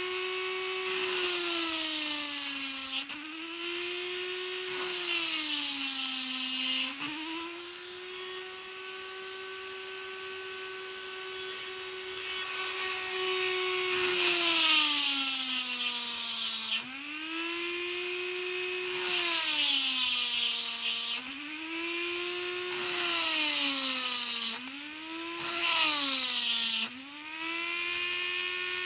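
Handheld rotary tool grinding the steel jaw of an open-end wrench with a small cylindrical bit. The motor's whine sags in pitch and recovers again and again as the bit is pressed in and eased off, with about six louder spells of grinding hiss.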